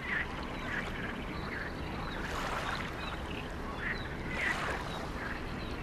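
Outdoor ambience by open water: a steady soft rush of wind and water that swells gently a few times, with small bird chirps now and then.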